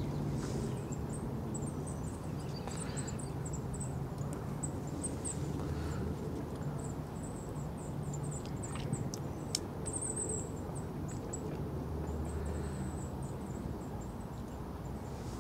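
Small songbirds giving many short, very high-pitched chirps, over a steady low rumble.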